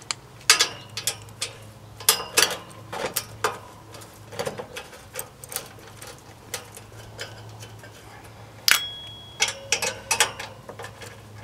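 Nut driver working loose the motor-mount nuts of an A/C condenser fan motor: irregular metal clicks and taps of the tool on the nuts and the wire fan guard. One sharper clink about three-quarters through rings briefly, over a faint low steady hum.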